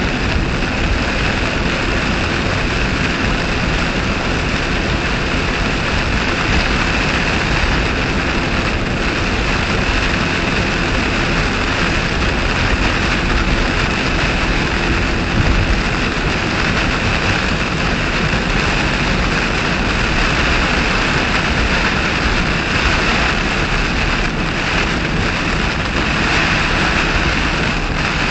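Steady noise heard inside a car driving at highway speed through heavy storm rain: rain on the body and windshield, wind, and tyres on the soaked road blend into one constant noise.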